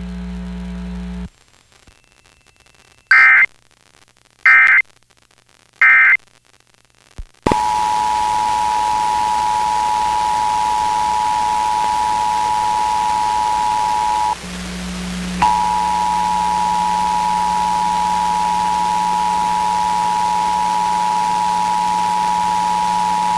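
Emergency Alert System Required Monthly Test off FM radio: three short screeching data bursts of the digital header, about a second and a half apart, then the steady two-tone attention signal over radio hiss, broken for about a second partway through. A low hum cuts off about a second in, before the bursts.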